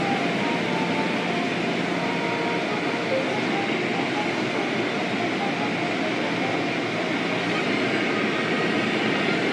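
Spinning cloth brushes of an automatic car wash scrubbing over the car's windows and body, with water spraying, heard from inside the car as a steady, noisy rush.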